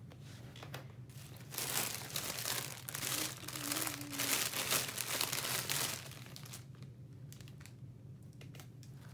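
Packaging crinkling and rustling in hands as an item is unwrapped, in a run of loud crackly bursts from about a second and a half in until about six seconds in.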